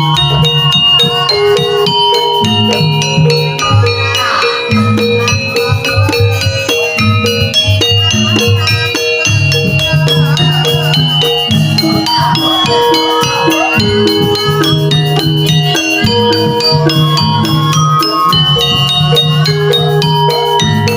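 Live jaranan gamelan music: struck metal gong-chime notes in a steady repeating pattern with dense percussion strokes. A wavering higher melody comes in twice, about four seconds in and again around twelve seconds.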